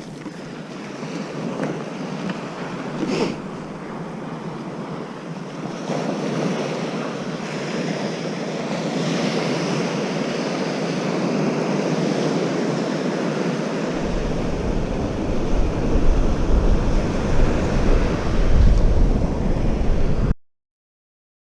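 Ocean surf washing steadily on a sandy beach. About two-thirds of the way in, low wind rumble on the microphone joins it and grows louder. The sound cuts off suddenly near the end.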